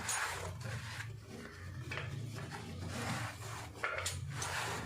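Repeated scratchy rubbing strokes of cleaning inside the oil pan of an industrial sewing machine, over a low steady hum.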